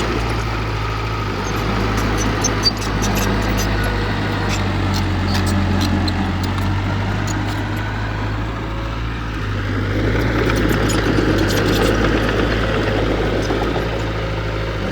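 Diesel engine of heavy earthmoving equipment running steadily, with scattered clinks and one sharp knock about two and a half seconds in.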